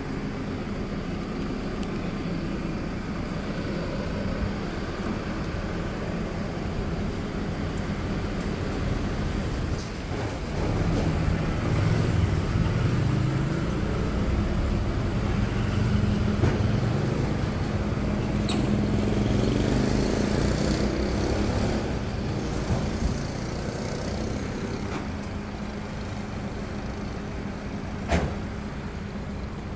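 Street traffic ambience with a steady hum underneath. A vehicle engine's low rumble swells about ten seconds in and eases off again after about twenty seconds. There is a single sharp click near the end.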